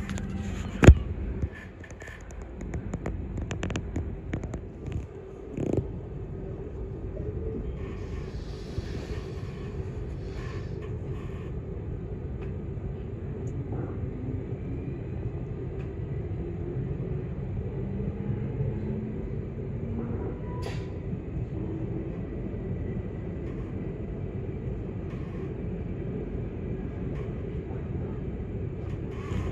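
Train running along the track, heard from inside the carriage: a steady low rumble with a faint steady hum. There is a sharp knock about a second in and a smaller one near six seconds.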